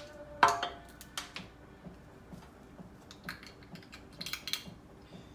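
Small metal clicks and clinks of a lever drag fishing reel being taken apart by hand, its metal parts knocking together. One sharp, briefly ringing clink about half a second in is the loudest, followed by scattered lighter clicks.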